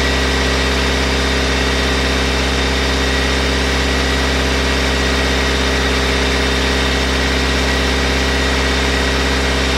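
BMW E90 3 Series engine running steadily, with a combustion-leak tester fitted on its coolant expansion tank during a head gasket test.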